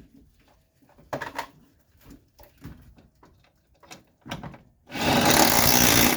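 A power wrench running a 12 mm fastener down on a strut assembly: a few short bursts, then a longer run of about a second near the end that stops abruptly, with light clinks of tools in between.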